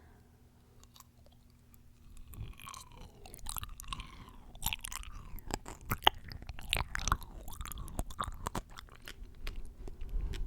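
Close-miked chewing and crunching of juicy fresh fruit, with wet mouth sounds. It starts about two seconds in and continues as a dense run of crisp crunches.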